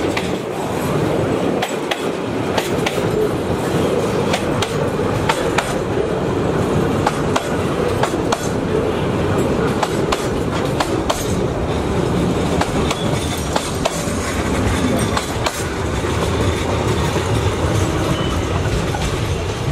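Container freight train rolling past close by: a steady rumble of wagon wheels on the rails, with a continuous run of sharp clicks and clatter as the wheels cross the rail joints.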